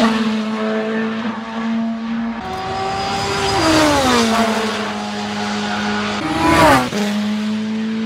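Porsche 919 Hybrid Evo race car's turbocharged 2.0-litre V4 at full speed, passing several times in separate shots. Each pass is a steady engine note that falls in pitch as the car goes by, about four and seven seconds in.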